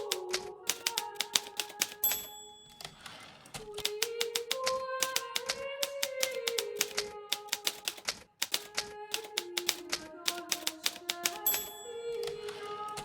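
Hermes Baby portable typewriter typing in quick bursts of key strikes. Twice, about two seconds in and again near the end, a short ring is followed by a rasping sweep: the line-end bell and the carriage return. Soft melodic music plays underneath.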